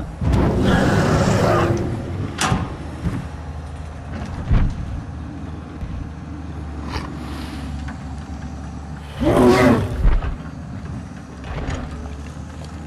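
Excavator engine sound running steadily underneath. Two loud dinosaur roars sound over it, one starting about half a second in and a stronger one about nine seconds in, with a few short knocks between them.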